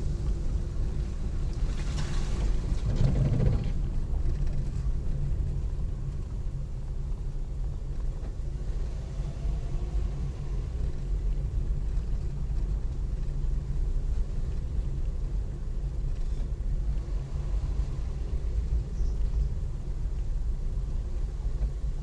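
A car's engine and road rumble while driving, steady and low, with a brief louder swell about three seconds in.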